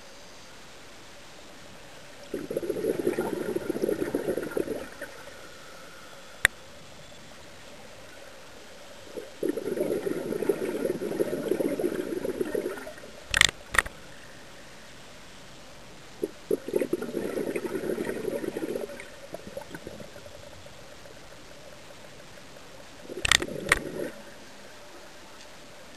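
Scuba diver breathing through a regulator underwater: four rushes of exhaled bubbles, each a few seconds long, coming every six to seven seconds. A few sharp clicks fall among them, one alone and two in quick pairs.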